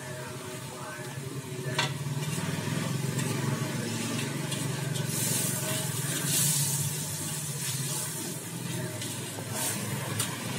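Fried noodles sizzling in a wok over a gas burner as a metal spatula stirs and tosses them, with a few sharp clacks of the spatula against the wok. The sizzle swells loudest about halfway through.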